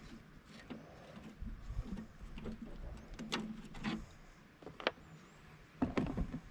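Faint, scattered clicks and knocks of a Phillips screwdriver and loosened screws working on a Jeep Wrangler JK's factory taillight.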